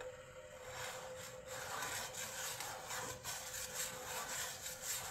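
Steel blade rubbed in a figure-of-eight on a Faithfull diamond sharpening stone oiled with WD-40: a run of uneven rasping strokes as the bevel is honed.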